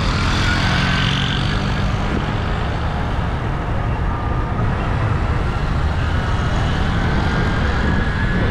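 Car driving through town traffic: steady engine and road noise with a low rumble.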